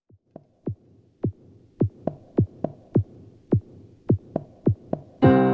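Electronic outro music: a drum-machine kick beat starts sparse and quickens to about three or four beats a second, and sustained synthesizer and piano chords come in near the end.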